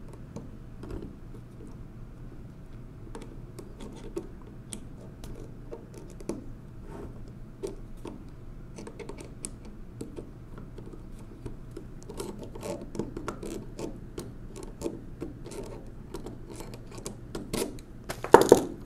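Small metallic clicks and scrapes of pliers gripping and turning a small nut on the steel frame of a 1920s Monroe Model K mechanical calculator, loosening it. The clicks come more often in the second half, and there is a louder clatter near the end.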